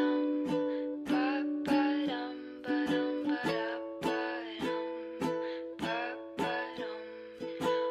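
Background music: a song with a strummed string instrument keeping a steady beat of about two strums a second, and a voice singing over it.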